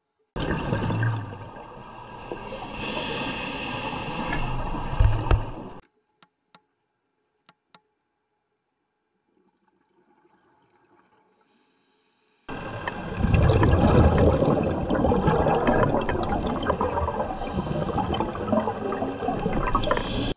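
Scuba exhaust bubbles heard underwater: two long bursts of bubbling rush, the first about five seconds, the second about eight, with near silence and a few faint clicks between.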